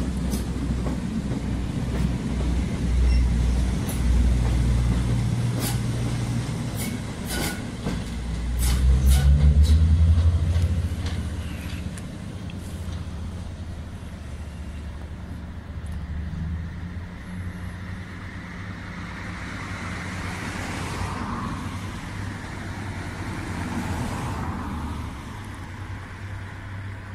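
Network Rail test train passing: a low rumble of the coaches and the trailing Class 73 locomotive, with sharp clicks of wheels over the track joints, loudest about ten seconds in as the locomotive goes by, then fading as the train draws away.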